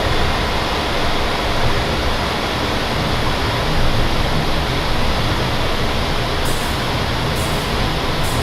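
Steady roar of rushing air and turbofan engine noise inside a Learjet 45 cockpit in flight, with a low hum underneath and no breaks.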